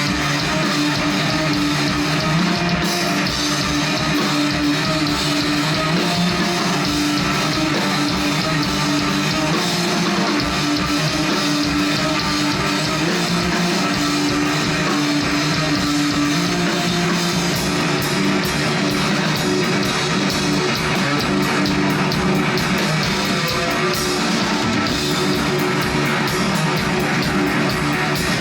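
Live stoner rock band playing: electric guitars and drum kit, with the cymbals growing busier in the last third.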